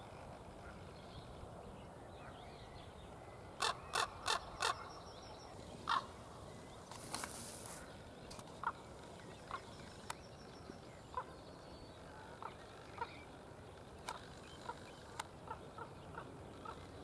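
Common raven calling: a quick run of four loud short calls a few seconds in and one more about two seconds later, followed by a long series of fainter short calls about once a second.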